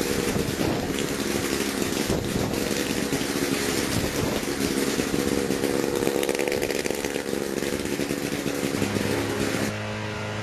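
Engine of a small homebuilt single-seat helicopter running steadily. Near the end the sound cuts to a slightly quieter, smoother engine note.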